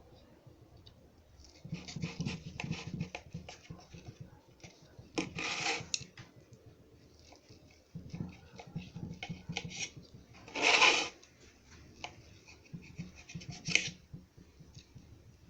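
A knife cutting and scraping through a cooked potato egg pancake, in irregular strokes with a few louder scrapes and knocks.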